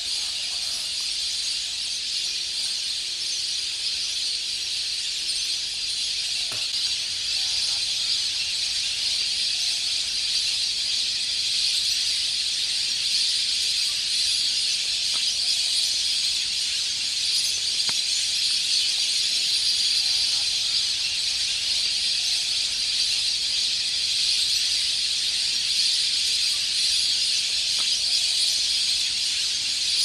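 Massed calling of a huge flock of migratory waterbirds, thousands of voices merging into a continuous high-pitched hiss-like chorus that grows slightly louder as more birds take to the air.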